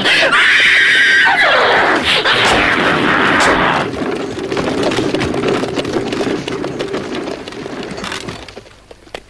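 A horse whinny for the caged cartoon unicorn: a long, loud neigh in the first two seconds that slides down in pitch at its end. A quieter, steadier sound follows and fades out near the end.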